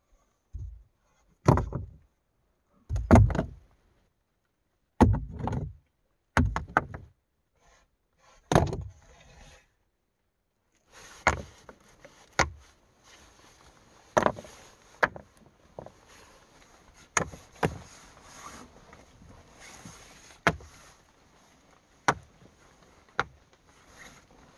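Rocks being set down on the rocky floor of a tree hollow. About six heavy thuds come in the first nine seconds, then a run of sharp stone-on-stone clacks at irregular intervals, roughly one a second.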